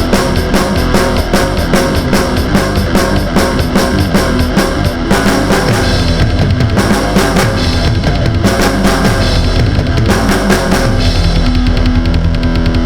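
Loud rock music, heavy-metal style, with a steady fast drum beat and guitars; the arrangement changes near the end.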